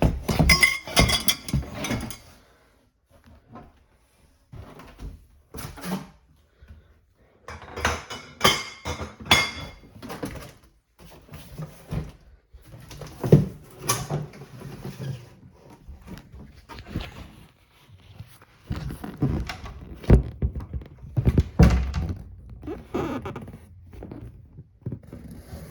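Animatronic parts and their packaging being handled: rustling with scattered knocks and thunks of pieces being moved and set down, in a small room.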